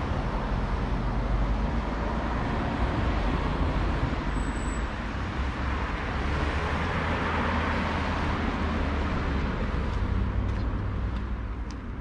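Road traffic: cars driving past on a paved road, a steady rush of tyre and engine noise that eases off near the end.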